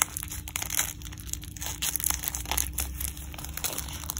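Irregular crinkling and rustling of packaging being handled by hands in disposable gloves as a bag of small cosmetics and candy is packed.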